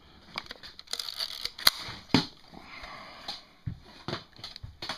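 Horizon 202 swing-lens panoramic film camera being worked by hand: a string of sharp mechanical clicks and clacks from winding and firing, with a short rasping stretch in the middle. The mechanism is working.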